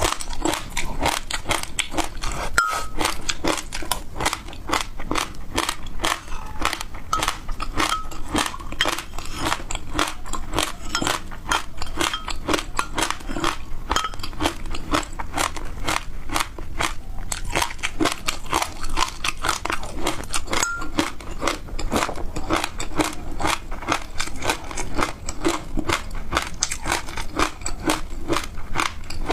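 Close-miked chewing of crunchy food: a steady stream of small, rapid crunches and crackles, many a second.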